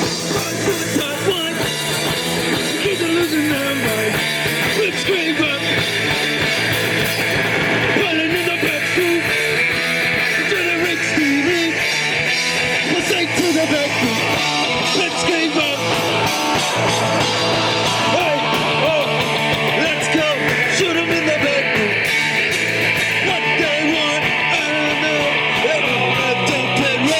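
Live rock band playing a punk-style song on electric guitar, with a voice singing over it.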